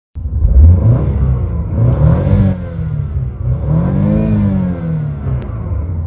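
Car engine revved in park, its pitch rising and falling back several times.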